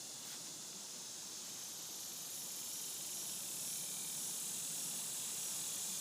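A steady high hiss that grows slightly louder over the seconds.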